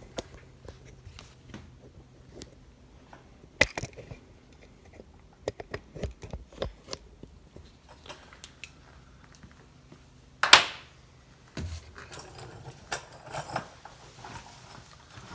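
Small metal tools and parts handled on a workbench: scattered light clicks and knocks, with a sharp clack a little under four seconds in and a louder, ringing clack about ten and a half seconds in.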